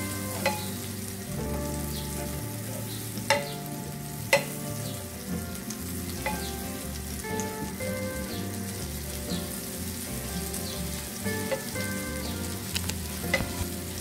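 Butter sizzling and bubbling as it melts in a nonstick frying pan, with a wooden spatula pushing it around and now and then tapping the pan, loudest about four and a half seconds in.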